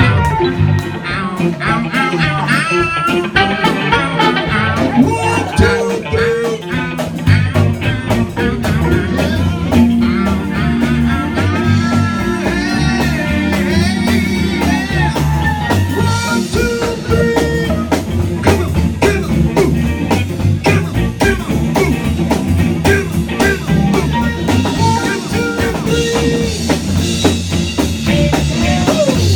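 Blues-style band music: guitar over a drum kit, playing continuously.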